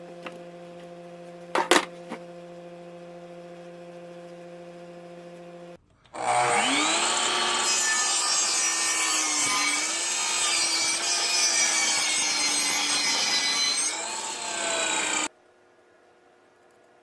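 Power saw cutting wood: the motor spins up about six seconds in and runs with its pitch dipping under load for about nine seconds, then cuts off sharply. Before it there is a steady electrical hum with a couple of sharp knocks.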